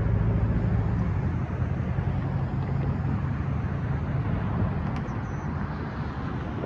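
Road traffic passing: cars and pickup trucks driving by over the crossing, with a low engine hum that fades away about halfway through.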